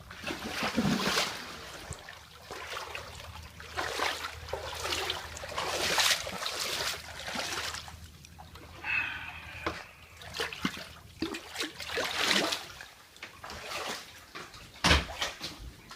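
Floodwater splashing and sloshing in repeated surges every second or two, with a brief high-pitched sound a little past halfway.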